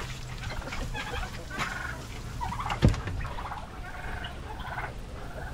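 Domestic poultry calling in short, repeated bursts, with a single loud knock just before the middle.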